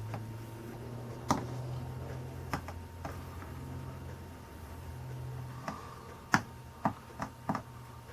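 Sharp, irregular clicks and taps from soldering a stained glass panel with a soldering iron, about eight in all, several close together in the second half, over a low steady hum.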